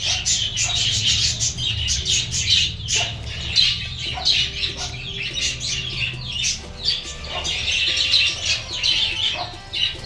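A flock of budgerigars chattering, with many overlapping chirps and squeaks and occasional wing flutters.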